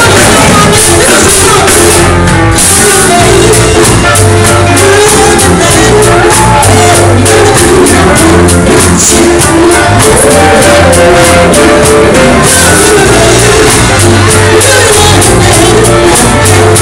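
Live soul/R&B band playing loud, with a woman singing lead into a microphone over saxophone, electric guitar, drum kit and keyboard.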